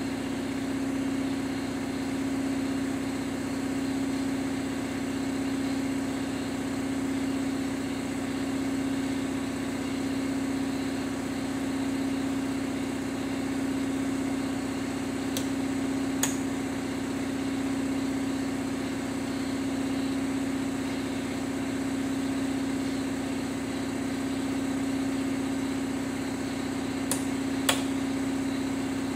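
A steady machine hum with one strong low tone runs throughout. Two light clicks come about halfway through, and near the end two sharp taps of a hammer on a punch. The punch drives wadded white bread into a camshaft's blind dowel-pin hole to force the broken hardened dowel pin out.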